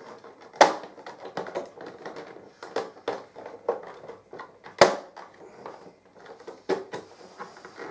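Hands fumbling at the hard plastic top cover of a 1980s Sanyo Support KC-66 portable stereo, feeling for how to open its built-in turntable compartment: irregular light clicks and taps, with two sharper knocks, one about half a second in and one near five seconds in.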